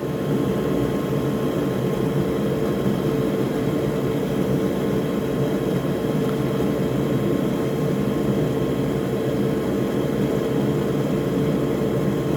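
Steady whir of electric bench fans, with a constant hum tone, running while an Xbox Series X HDMI port's posts are soldered. The loudness barely varies.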